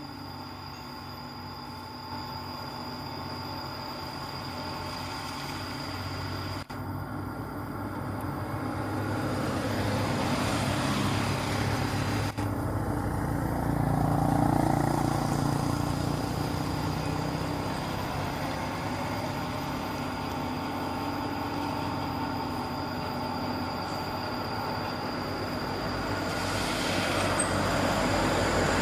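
Radio-controlled model excavator running under power, a steady mechanical whine with several constant tones that grows louder and rougher as it works, strongest about halfway through and rising again near the end.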